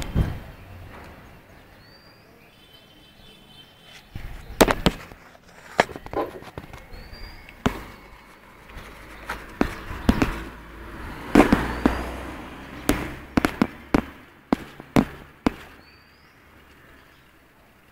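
Irregular sharp clicks and knocks, a dozen or so spread through the stretch, some in quick pairs, with the loudest near the middle.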